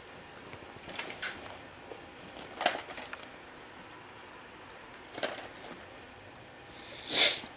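A few short rustles and scratchy crackles of movement on a bedspread, spaced a couple of seconds apart, with the loudest near the end.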